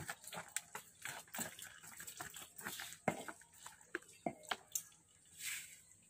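Water splashing and sloshing in a concrete buffalo feeding trough, in irregular wet splashes and knocks, with one longer swish near the end.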